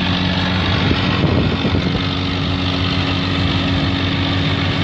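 Tractor diesel engine running steadily under load while it drives a field implement through paddy straw. It gives an even engine hum with a constant mechanical whirring over it.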